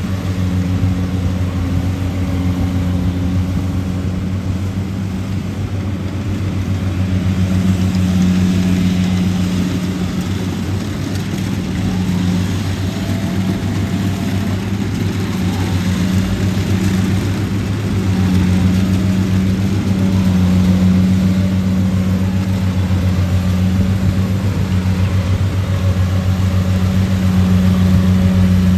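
Rice combine harvester's diesel engine running steadily, a continuous low drone whose loudness swells and eases slightly every few seconds.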